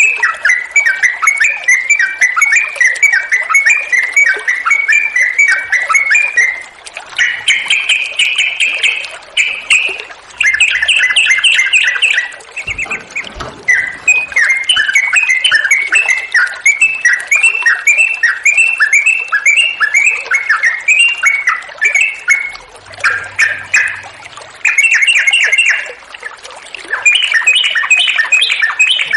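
Yellow-vented bulbul singing vigorously: a long, fast run of bubbling, chattering notes that carries on almost without a break, pausing briefly twice.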